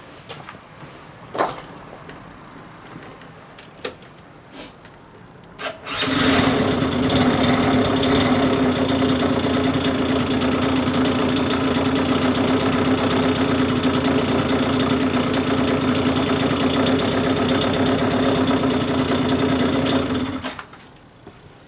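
Yamaha JOG Aprio (4JP) scooter's 50cc two-stroke single-cylinder engine catching about six seconds in and running at a steady speed for about fourteen seconds before it cuts off. A few faint clicks come before it starts.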